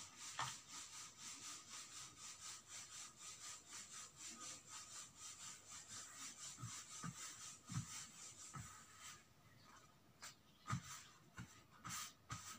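Hands rubbing fabric briskly back and forth, pressing glued cloth down flat onto stiff buckram: a faint, fast, even swishing of about four to five strokes a second. It stops about nine seconds in and is followed by a few soft handling knocks.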